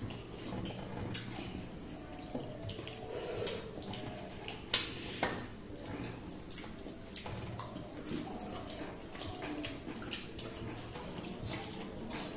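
Eating by hand from metal plates: fingers mixing rice with chicken curry and chewing, with small scattered clicks of fingers on the plates. One sharp clink stands out a little before halfway, followed by a smaller one.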